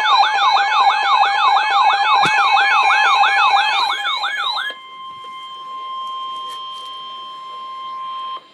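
Emergency Alert System attention signal for a severe thunderstorm warning: a loud electronic siren wailing in quick repeated rising sweeps, about four a second. About four and a half seconds in it cuts off and a quieter steady single-pitch alert tone follows, which stops just before the end.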